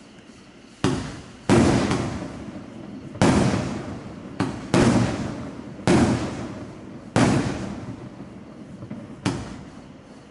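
A 25-shot fireworks cake of gold sizzling willow and red strobe shells firing in sequence: about eight sharp bangs, one to two seconds apart, each trailing off over a second or so.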